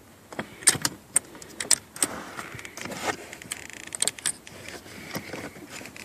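Irregular clicks, taps and rustling rattles from hands handling a seat belt buckle's cable and wiring against the plastic and metal of a car seat frame, some strikes sharp and close.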